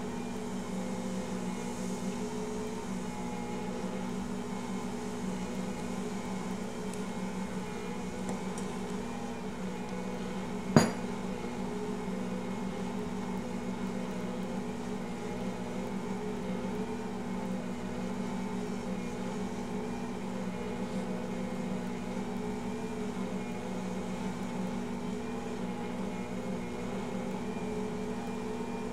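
Ankarsrum stand mixer running steadily, its motor humming as the dough hook kneads bread dough in the turning steel bowl. About eleven seconds in, a single sharp, ringing clink against the steel bowl.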